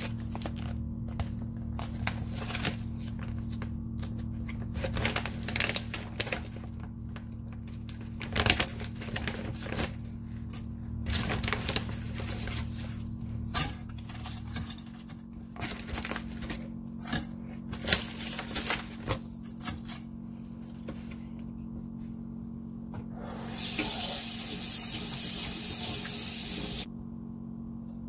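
Repeated light clicks, taps and rustles of frozen steamed buns on paper liners being set into a stainless steel steamer basket, over a low steady hum that drops away about halfway. Near the end a steady rushing hiss, like running water, lasts about three seconds and stops abruptly.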